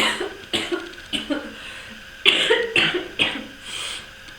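People coughing, about half a dozen short coughs in quick succession, loudest a little past the middle.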